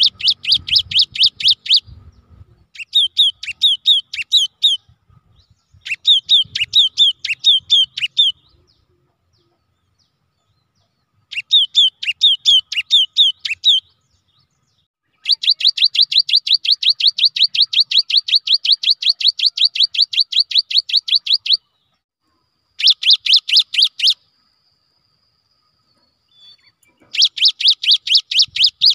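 Cinereous tit (gelatik batu) singing: bouts of rapid, evenly repeated high whistled notes, each note sweeping downward, a couple of seconds per bout with pauses between. One unbroken run in the middle lasts about six seconds.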